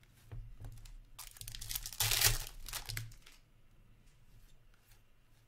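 Hockey card pack wrapper torn open and crinkled by hand: a burst of tearing and crinkling that lasts about two seconds and peaks halfway through, with a few light taps of cards before it.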